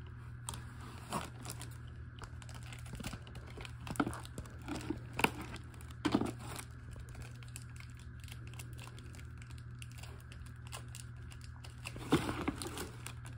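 Toy packaging being handled and opened: intermittent crinkling, rustling and tearing, with sharper clicks around four to six seconds in and again near the end, over a steady low hum.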